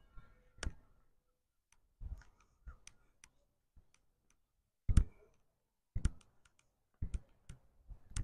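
Footsteps of a person walking on a paved pavement, picked up close as irregular sharp clicks with soft low thumps, roughly one a second.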